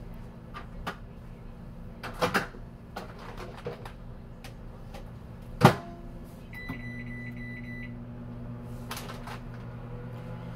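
Microwave oven being loaded and started: a clatter as the plate goes in, the door shut with a loud clunk about halfway, a short run of keypad beeps, then the oven running with a steady hum.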